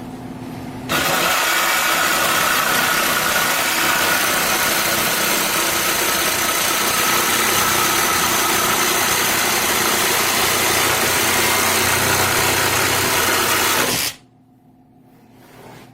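BLACK+DECKER 20V MAX BDCJS20B cordless jigsaw running and making a straight cut, a steady saw noise that starts about a second in and stops suddenly near the end.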